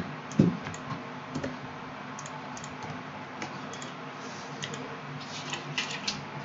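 Computer keyboard typing and mouse clicks: scattered keystrokes with a quick cluster near the end, over a faint steady low hum. Two dull thumps in the first half second are the loudest sounds.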